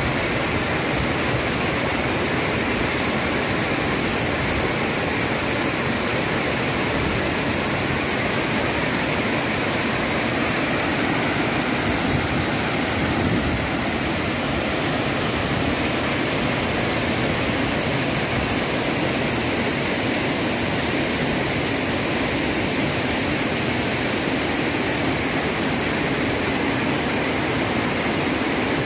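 Waterfall's rushing water, a steady, loud, unbroken roar.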